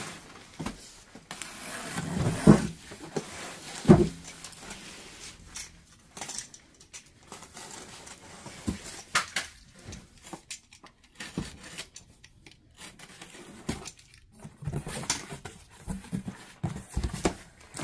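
Cardboard boxes and packed merchandise being handled and moved: irregular knocks and rustling, with two louder thumps a few seconds in.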